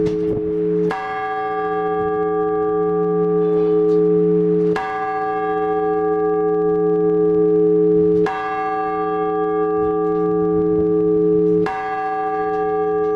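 Orthodox church bell struck four times in slow, even strokes about three and a half seconds apart, each stroke ringing on with a deep hum until the next.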